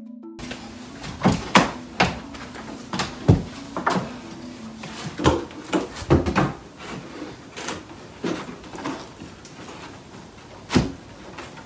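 Irregular wooden knocks and bumps, a dozen or more, as a heavy cedar shelf is lifted and pushed into place against a plank wall, with a few louder thuds.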